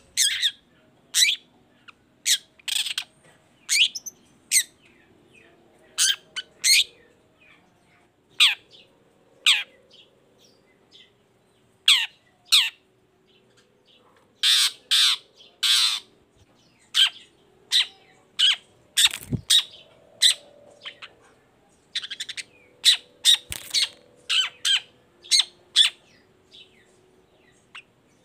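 Caged long-tailed shrike (cendet) calling in full voice: a long, irregular run of short, sharp, harsh notes and chirps, one or two a second with brief pauses. Two soft low knocks partway through.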